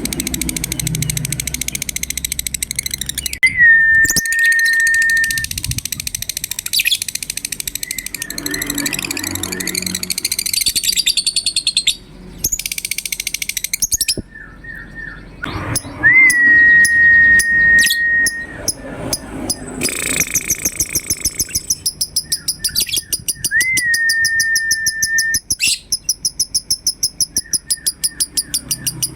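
Lovebirds chattering and trilling in a dense run of rapid, shrill notes: the ngekek song used as a lure to set other lovebirds calling. Three times a long, steady whistled note is held for about two seconds, and toward the end the notes settle into a fast, even repeated trill.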